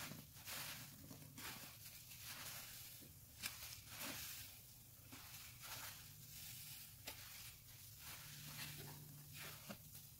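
Dense kitchen sponges full of soapy suds being squeezed and kneaded by gloved hands, giving soft wet squishes and foam crackle, one squeeze about every second.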